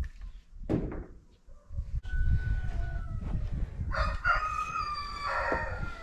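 A rooster crowing once, a call of about two seconds, over a steady low rumble, with a single knock near the start.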